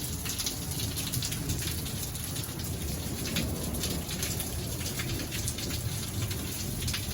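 Steady rain falling, with many separate drops striking hard surfaces.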